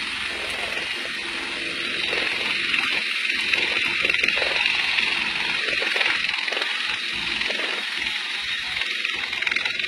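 Helicopter landing: steady engine and rotor noise that grows a little louder about two seconds in.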